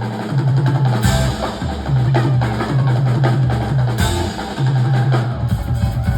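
Live band playing with a steady beat on drum kit and a repeating bass line.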